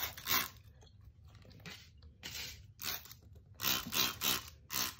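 Trigger spray bottle of household cleaner squirted onto a floor in repeated short hissing squirts, several in quick succession in the second half.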